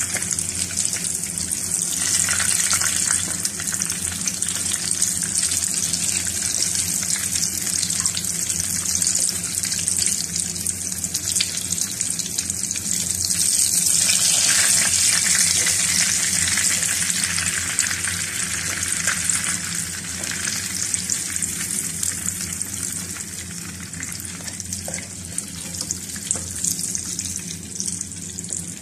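Oil sizzling steadily around besan-battered stuffed green chillies frying in a pan, nearly done and cooked on all sides. The sizzle is loudest about halfway through and dies down over the last few seconds as fewer pieces are left in the oil.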